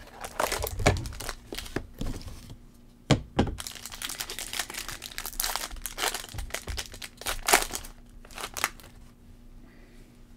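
A small cardboard trading-card box is torn open, with sharp snaps and rips, then the wrapped card pack inside crinkles and tears as it is ripped open. Near the end there are quieter rustles of card handling.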